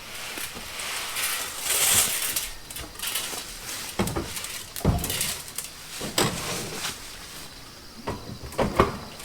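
Equipment being handled: irregular rustling and scraping with several short knocks.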